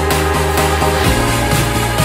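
Electronic dance music with a steady driving beat and a pulsing bass line; the bass moves to a new note about a second in.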